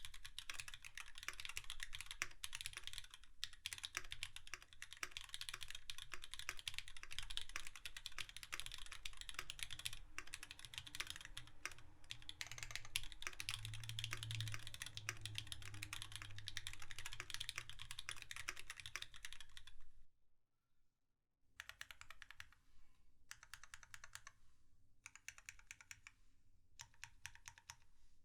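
Typing on a TX65 mechanical keyboard with lubed retooled Cherry MX Black linear switches in a brass plate, capped with GMK keycaps: a fast, continuous run of keystrokes, a pause of about a second and a half about twenty seconds in, then shorter, quieter bursts of typing with brief gaps.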